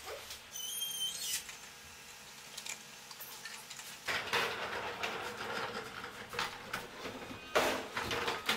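Wheeled moving cart rattling as it is pushed in through a doorway, with the loudest clatter near the end as its casters roll over the threshold.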